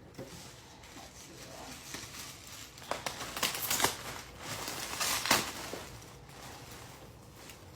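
Packaging being opened by hand, crinkling and tearing, with louder rustling bursts about three seconds and five seconds in.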